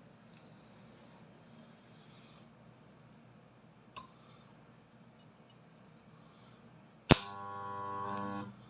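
Homemade spot welder built from a microwave oven transformer firing a weld: a sharp crack near the end, then a loud, even buzz for about a second and a half that cuts off suddenly. A lighter single click about four seconds in.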